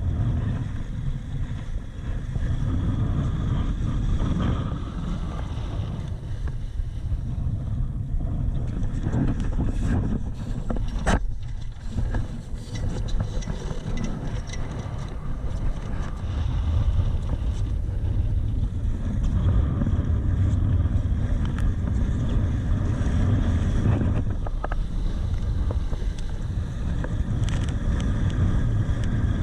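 Strong wind buffeting the microphone while sailing a Laser dinghy in heavy weather, a steady low rumble. A single sharp knock comes about eleven seconds in.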